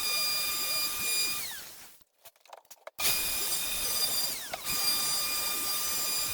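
Wood router running at speed with a steady high whine while cutting a groove. Its pitch sags briefly under load about a second and a half in and again around four and a half seconds. The sound drops out for about a second near the two-second mark.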